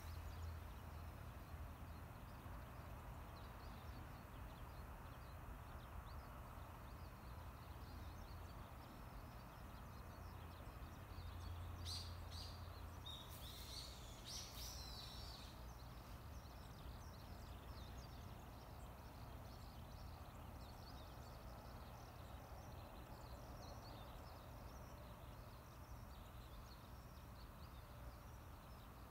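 Quiet outdoor ambience: a faint steady low rumble, with a few short bird chirps about halfway through.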